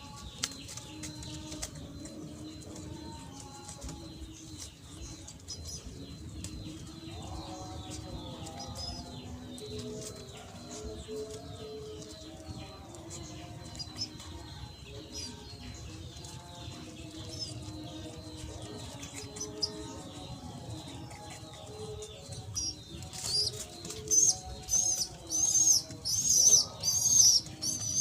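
Bird calling: a loud run of high, evenly repeated chirps starts near the end, about one or two a second. Softer low, stepped tones run under it throughout.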